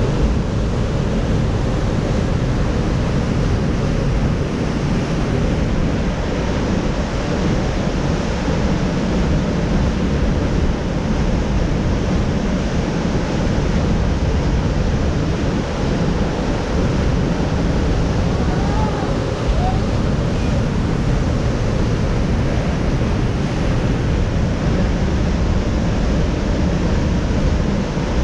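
Steady rush of the Great Falls of the Potomac, whitewater pouring over the ledges and through the rapids, with some wind on the microphone.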